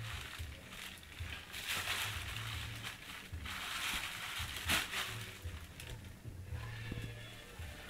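Thin plastic shopping bag rustling and crinkling in several bursts as a cat noses and paws at it, with one sharp click a little under five seconds in.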